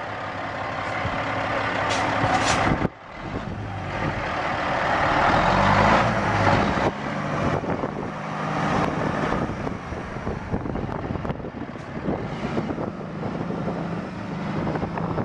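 Caterpillar C12 diesel engine of a Freightliner Columbia semi truck working under load, its sound building, then cutting back sharply about three seconds in after a short hiss, building again over the next few seconds, then running steadily.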